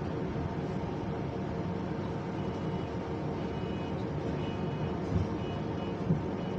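Double-decker bus running, heard from the upper deck: a steady drone in which the electric engine-cooling fan holds one steady pitch rather than following the engine revs. Two brief knocks about a second apart near the end.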